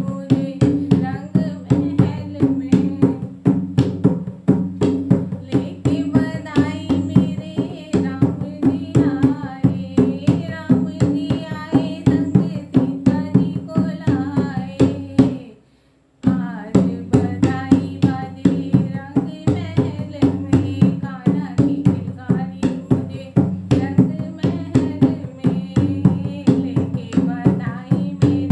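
A woman singing a Hindi devotional bhajan for Krishna's birth to a quick, steady hand-drum beat. The sound cuts out briefly just past the middle, then the song and beat carry on.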